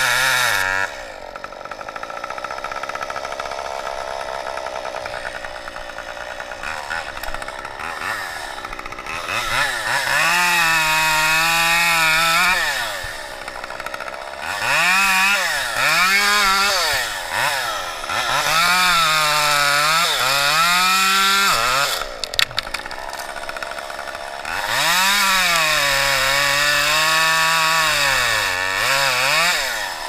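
Small top-handle chainsaw cutting through palo verde limbs: it runs at a lower idle for the first several seconds, then is revved up four times for long cuts, its engine pitch sagging and recovering as the chain bites the wood.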